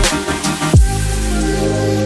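Electronic background music: a heavy bass drop with falling sweeps and drum hits, giving way about a second in to steady sustained chords.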